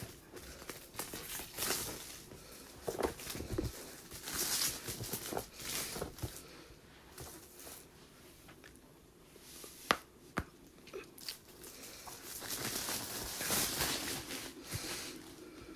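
Intermittent rustling and scraping of a cardboard game box being opened and its contents handled, with a single sharp click about ten seconds in.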